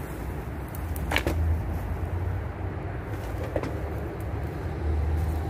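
Steady low outdoor rumble, with a brief high chirp about a second in.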